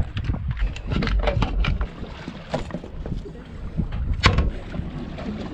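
Sailboat's electric anchor windlass bringing the anchor home into the bow roller. A low rumble runs for about the first two seconds, then scattered metal clicks and knocks of chain and anchor follow, with a sharp clank about four seconds in.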